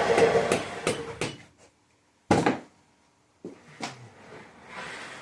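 A power tool spins down at the start, then metal engine parts and hand tools clink and knock, with one loud clack about two seconds in, as a 13B rotary engine is taken apart.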